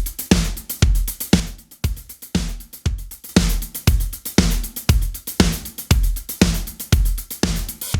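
Drum loop: kick, snare and hi-hats in a steady beat, with hits about twice a second.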